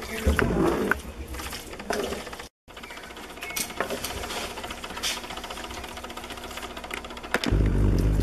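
Thick fruit honey cooking in a metal pan: a fine, rapid crackle of small bubbles popping, with a wooden spoon stirring and scraping in the first couple of seconds. The sound drops out briefly about two and a half seconds in, and a low rumble comes in near the end.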